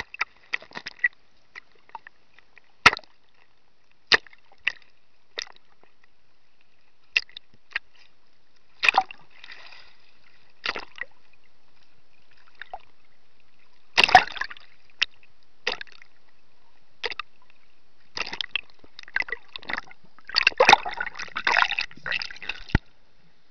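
Choppy lake water sloshing and slapping against a camera held at the surface, in scattered sharp splashes over a faint hiss. There is a thicker burst of splashing about 14 seconds in and a longer run of it near the end, which cuts off abruptly as the camera goes under.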